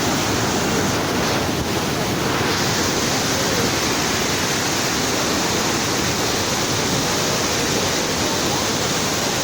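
Floodwater flowing and rushing in a steady, dense wash of noise, with no pauses or changes.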